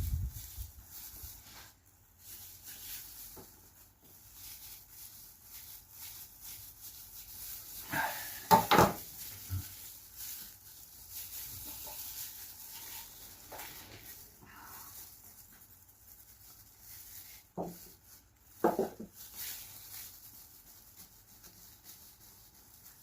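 Quiet handling and rubbing sounds as a fibreglass patch is laid and worked over a hole in the van's floor. Short louder sounds come about eight seconds in and again about eighteen seconds in.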